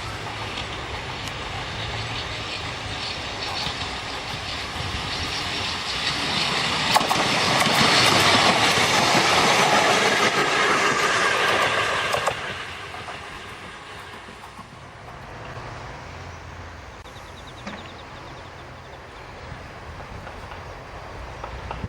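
A Kotoden Shido Line electric train running on the rails with wheel-on-rail clatter, growing louder to a peak, then dropping away suddenly about twelve seconds in.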